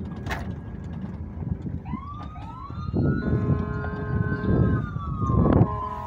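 Electronic siren wailing from about two seconds in, two overlapping tones sweeping up and down, over the low rumble and wind noise of a moving motorcycle.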